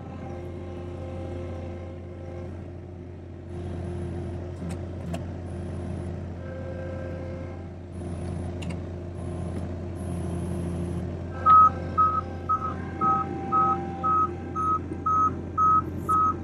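Avant 528 compact loader's engine running steadily while its hydraulics work the boom. In the last five seconds a reversing alarm beeps about twice a second, loud and regular.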